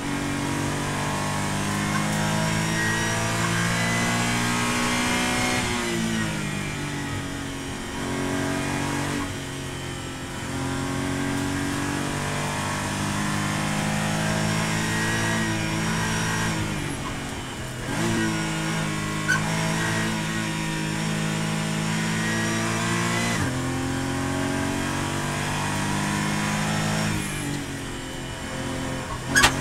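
Porsche GT4 race car's flat-six engine heard from inside the cabin, pulling up through the revs under full throttle, then falling away when the driver lifts and brakes for corners, several times over. A brief sharp crack comes near the end.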